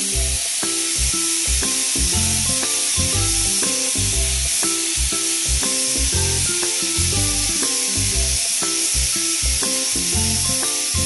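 Pressure cooker hissing steam steadily as it builds pressure, over background music with a regular beat.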